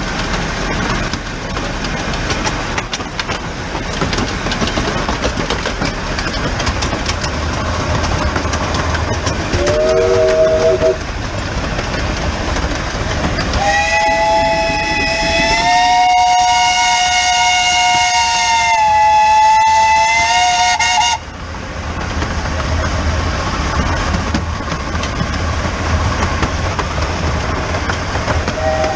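The Bug, a small 15-inch-gauge steam locomotive, running with steady rail clatter and motion noise right at the microphone. A short three-note steam whistle sounds about ten seconds in. A long two-note steam whistle follows a few seconds later, holds for about seven seconds, dips slightly in pitch near its end, and cuts off sharply.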